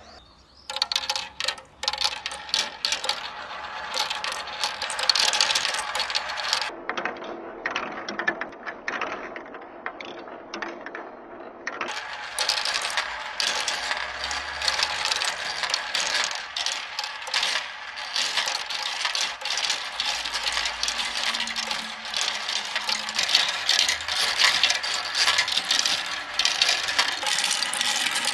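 Small balls rolling and clattering through plastic marble-run tracks and paddle wheels: a dense, continuous run of clicks and rattles. Between about seven and twelve seconds in, the clatter sounds duller.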